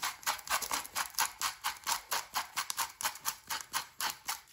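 Hand salt grinder twisted rapidly back and forth, crunching kosher salt crystals in quick, even strokes, about five or six a second.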